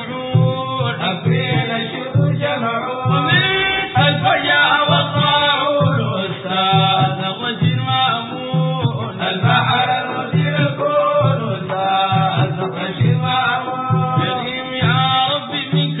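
Sudanese Sufi madeeh: male voices chanting a praise song to the Prophet, over a steady low beat about every two-thirds of a second.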